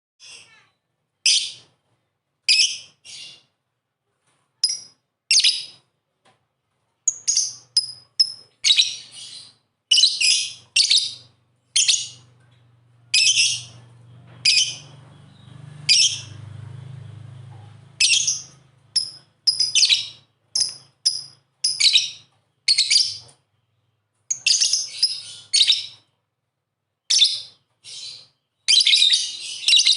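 Lovebirds calling: many short, shrill chirps in irregular clusters with brief pauses, busiest in the second half. A faint low hum sits under the calls through the middle stretch.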